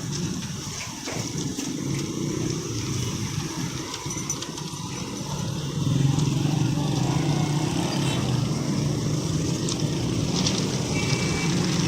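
Diesel locomotive engine running with a steady low rumble as a train passes, getting louder about six seconds in.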